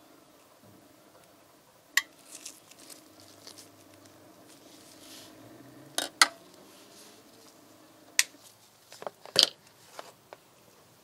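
Sharp metal-on-metal clicks and clinks, about a dozen spread irregularly, loudest about two, six and nine seconds in, as the steel test sample and its holder are handled and fitted onto an oil-film test machine. The machine's motor is not running.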